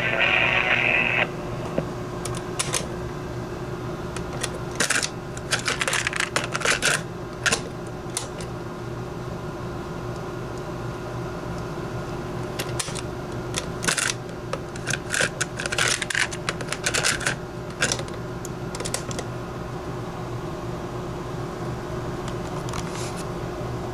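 Electra radio-recorder: its radio sound cuts off about a second in, leaving a steady electrical hum and hiss from the set, broken by several clusters of sharp clicks and crackles.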